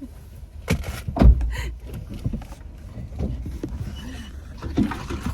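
Suzuki Jimny lurching over a rough off-road track: knocks and clunks over a low rumble, with one heavy thump about a second in.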